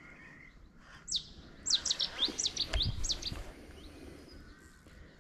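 A small songbird singing a rapid run of sharp, high chirps, each a quick sweep in pitch, starting about a second in and going on for about two seconds. A single dull low thump comes partway through.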